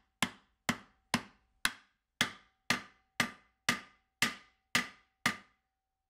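Hammer striking a block of wood held on a bearing outer race, driving the race into a gearbox casing. About eleven evenly spaced blows come at roughly two a second, each with a short ring, and they stop shortly before the end.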